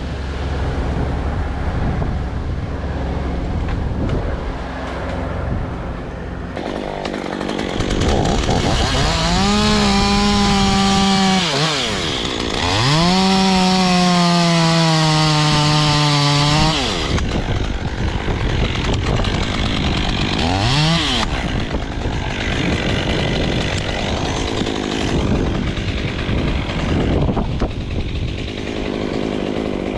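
Stihl chainsaw working in a tree: revved up to full throttle for two cuts of about three seconds each, its pitch sagging slightly under load. A short rev comes later, and the saw runs at lower revs in between.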